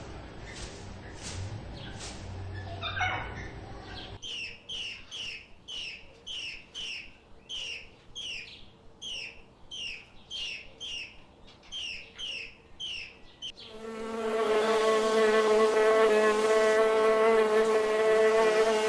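A bird calling in a long series of short, high, falling chirps, about two a second. About two-thirds of the way through it gives way to a louder, steady buzz of a flying insect's wings.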